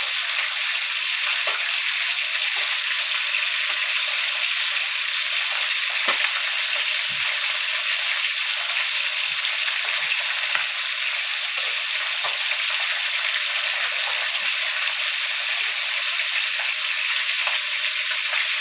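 Fish frying in hot oil in a pot: a steady sizzle with small scattered crackles and pops.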